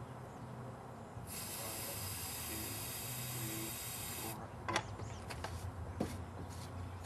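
An aerosol can spraying in one steady hiss about three seconds long, charging a potato cannon with aerosol fuel, then a couple of sharp clicks.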